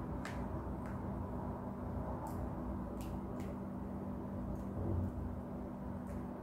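Steady low hum with a few faint light clicks, as fingers pick foam off liquid gelatin and touch the plastic tubs.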